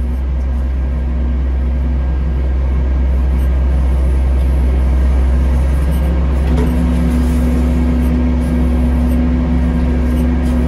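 Aircraft pushback tug's engine running steadily as it moves the airliner by a towbar on its nose gear. A loud low rumble with a humming tone that grows steadier about six and a half seconds in.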